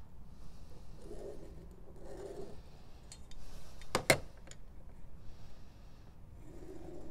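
A metal L-square rubbing and sliding over a leather hide as it is handled, with one sharp knock about four seconds in.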